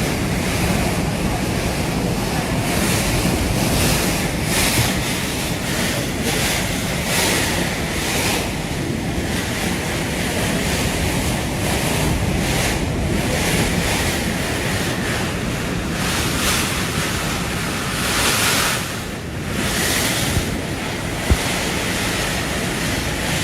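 Typhoon-force wind blowing hard and buffeting the microphone, a steady roar of noise that swells and eases in repeated gusts.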